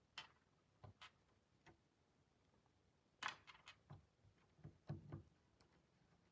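Faint, scattered clicks and light taps from handling slime with hard beads in it, in small clusters about three seconds and five seconds in.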